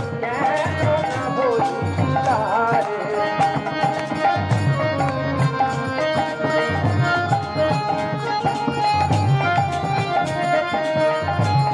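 Instrumental passage of a Bengali devotional kirtan: a hand drum keeps a steady rhythm under held melodic notes, with sharp clicks throughout.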